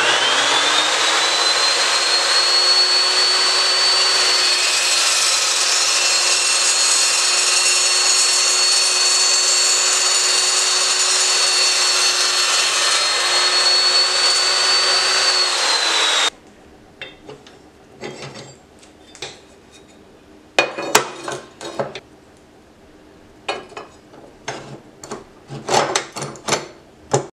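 Evolution S355CPSL cold-cut metal chop saw spinning up with a rising whine and running its 14-inch carbide-tipped blade through a clamped steel tube, a steady high whine over the cutting noise for about sixteen seconds before it stops abruptly. After that come quieter scattered knocks and clicks as steel angle is handled and clamped in the saw's vise.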